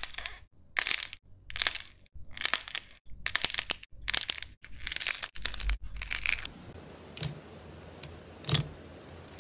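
Clay-like slime coating a cluster of balls squeezed by hand in repeated crackly squishes, roughly one a second. Then a hand presses into a bowl of glossy slime, quieter, with two sharp pops.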